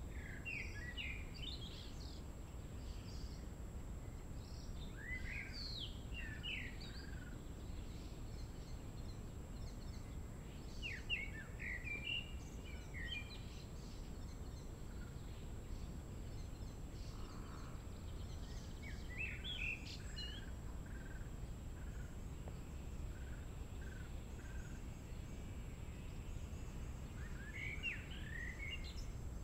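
A songbird singing short phrases of quick chirping notes, five phrases each lasting a second or two, several seconds apart, over a steady low background rumble.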